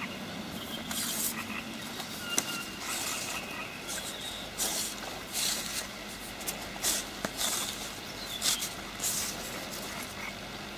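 Irregular rustles and light clicks of hands handling a float fishing rod and line close to the microphone.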